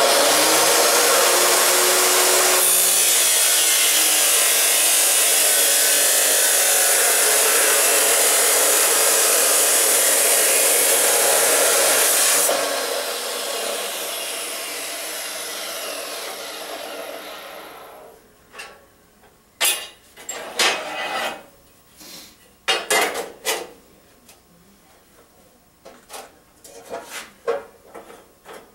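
Abrasive chop saw starting up and cutting through steel angle iron for about ten seconds, then the motor winding down over several seconds. After that come a series of sharp metallic clanks as the cut pieces are handled.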